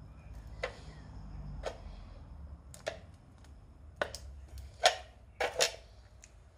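A metal meatball tin crumpling under the heel of a wooden clog: about seven sharp, irregular cracks and clicks as the can buckles, the loudest about five seconds in.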